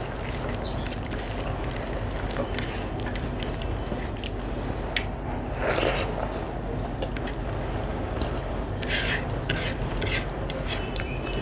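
Fingers mixing rice with sukto on a plate and mouth chewing: soft squishing and scraping with many small clicks, over a steady low hum. A louder scraping rustle comes about six seconds in.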